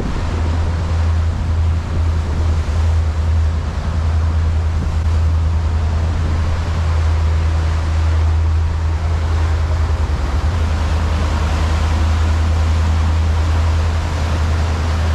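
Sportfishing boat's engines running steadily under way, a constant low drone, with water rushing past the hull and wind on the microphone.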